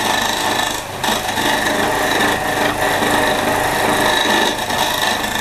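A chisel scraping a spinning softwood blank on an improvised motor-driven wood lathe: a continuous rasping over the motor's steady whine, easing briefly about a second in.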